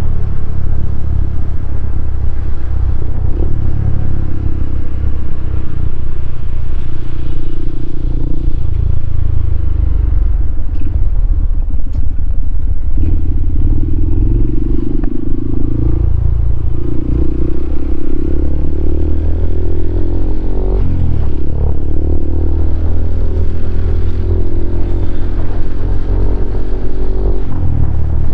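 Honda CRF150L's single-cylinder four-stroke engine, breathing through a Norifumi Noctus T5 aftermarket exhaust, running loud on the move; its note rises and falls as the throttle is opened and closed.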